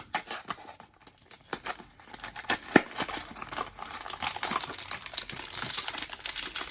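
Blind-box packaging being handled and opened: scattered rustles and clicks, then from about three seconds in a steady crinkling and tearing of the wrapper.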